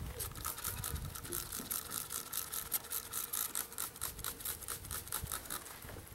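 Rapid, even scratching strokes, about seven a second, as a wire-screened package of honey bees is shaken down into the hive.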